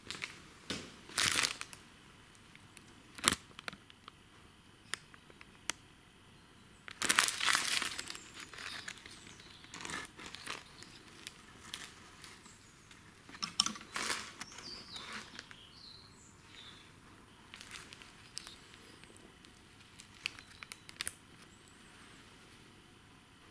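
Intermittent crinkling and rustling with a few sharp clicks: a new starter grip handle and its packaging being handled while it is fitted to a lawn mower's recoil pull cord.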